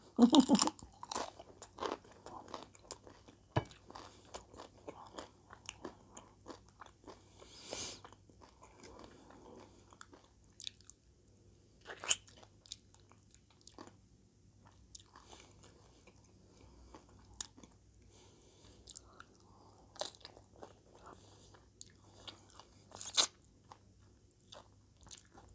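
Close-miked mouth sounds of someone eating homemade nachos: irregular chewing and crunching of sauce-soaked tortilla chips, with wet smacks and clicks as sauce is sucked off the fingers. A few louder crunches stand out.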